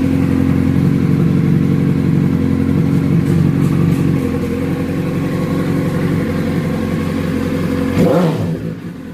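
Suzuki SRAD 1000 engine idling steadily and evenly, with no knock from the clutch cover: the noise, caused by a loose oil pressure relief valve and clutch basket, is gone after tightening them. Near the end the pitch briefly rises and falls and the sound drops in level.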